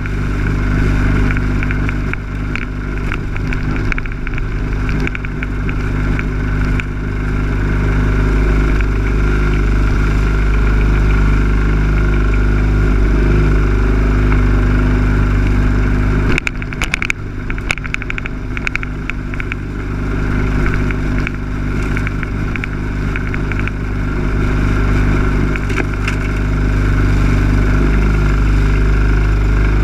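Lawn mower engine running steadily at a constant speed. About halfway through it dips briefly with a short spell of clattering knocks.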